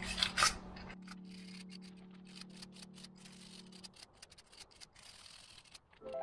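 Two short strokes of hand sanding on the rusty pad slides of a brake caliper bracket, then a steady low hum that stops about four seconds in and a few faint ticks. Music starts right at the end.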